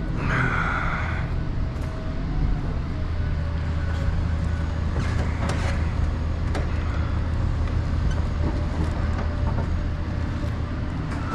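Heavy diesel engine idling: a steady low rumble, with a brief hiss at the very start and a couple of light knocks about five seconds in.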